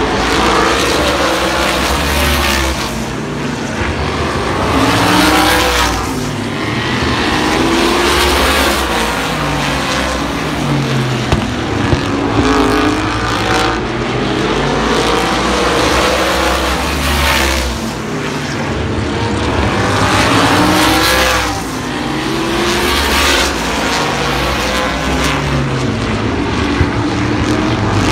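Winged super sprint cars racing around a short paved oval. Their engines rise in pitch on the straights and fall back into the turns, and the pack swells past several times.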